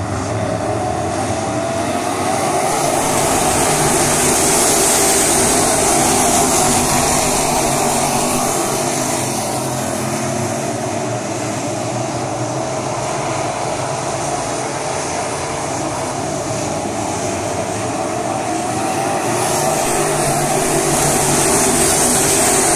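A field of crate-engine dirt late model race cars running at speed around a dirt oval. The V8 engines blend into one continuous racket that swells as the pack passes close, a few seconds in and again near the end.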